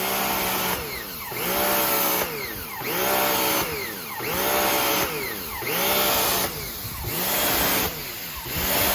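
Pressure washer motor revving up and down over and over, roughly once a second, with the spray noise swelling and dropping along with it. The motor keeps cycling instead of holding a constant pressure.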